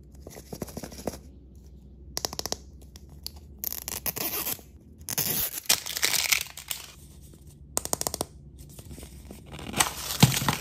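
Plastic wrapping torn and peeled off an L.O.L. Surprise ball in several crinkling bursts with short pauses between. Near the end comes a sharp click as the hard plastic ball's two halves are pried apart.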